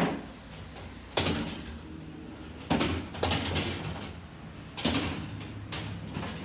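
Balls rolling along the brass tracks of a mechanical binary adder, with a sharp clack about every second as they drop through its switching joints; the carry balls working through the adder's stages.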